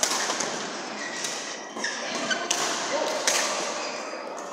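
Badminton rally: several sharp racket smacks on a shuttlecock, a second or so apart, with a brief shoe squeak on the court floor.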